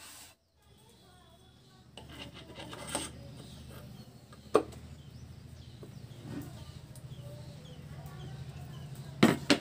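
Metal parts of an electric rickshaw's BLDC hub motor being handled and fitted together: rubbing and scraping of the housing and side cover, with a sharp metal clink about four and a half seconds in and a louder double clack near the end.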